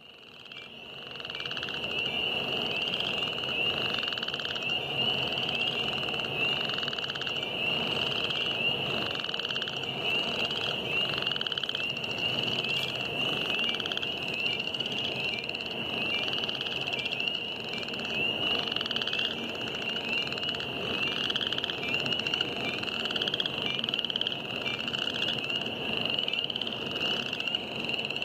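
A dense chorus of spring peepers and chorus frogs calling together: a continuous high peeping with repeated rising trills about once a second over it. The chorus fades in over the first couple of seconds, then holds steady.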